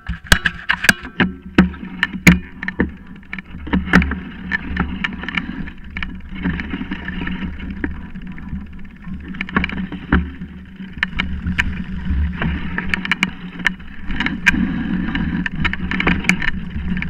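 Mountain bike rolling fast down a dry, leaf-covered dirt trail, heard from a camera mounted on the bike: a steady rumble of tyres on earth and leaves, with frequent sharp clacks and rattles as the bike jolts over bumps.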